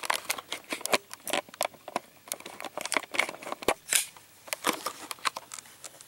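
Handling noise: a run of irregular small clicks and rustles as the camera is picked up and repositioned.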